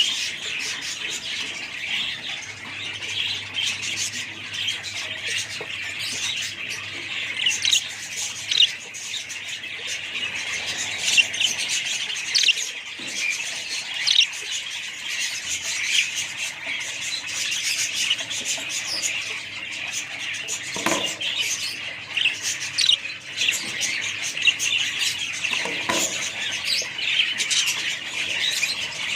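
A flock of budgerigars chattering, with many short chirps and squawks overlapping in a continuous high-pitched twitter.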